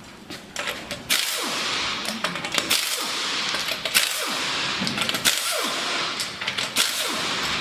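Air impact wrench hammering in several bursts, starting about a second in, spinning off fasteners on the truck's front wheel and hub.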